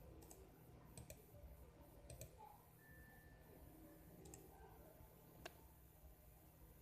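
Near silence, with a handful of faint, scattered clicks; the sharpest comes a little over five seconds in.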